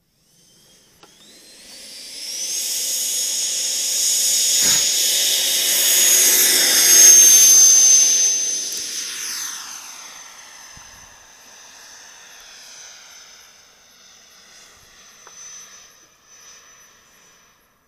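Radio-controlled scale L-39 jet model taking off. The high whine of its jet power unit rises to full power and holds steady as it rolls and lifts off, then drops in pitch and fades as it flies away. One short knock about four and a half seconds in.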